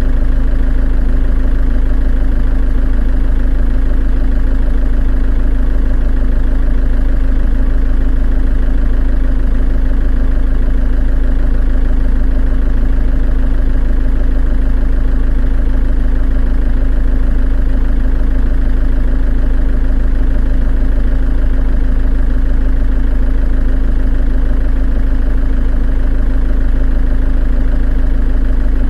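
Volkswagen 2.8-litre diesel engine idling steadily at an even speed.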